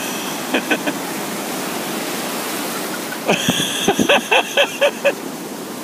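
Ocean surf washing in: a steady rushing wash of breaking waves. About three seconds in, a quick run of short sharp sounds rises above the wash.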